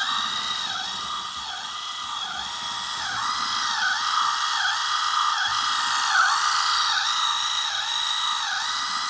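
Small electric drive motor of a Lesu RC skid steer running through its gearbox on a 2S LiPo: a steady whine whose pitch dips regularly, about every two-thirds of a second, over a fainter constant high tone. This is the weak motor that the owner suspects of causing its ESC to fail.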